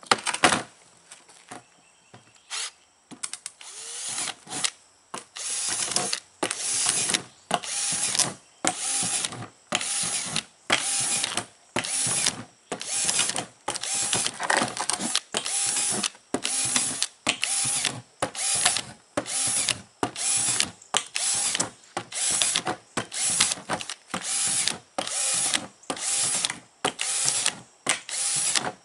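Cordless drill with a small bit boring holes through the plastic lid of a tool box, run in short bursts over and over, about one every 0.7 seconds. There is a single sharp knock just after the start.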